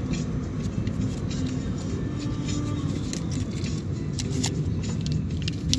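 Steady low rumble of a car driving, heard from inside the cabin, with a few light clicks and rattles.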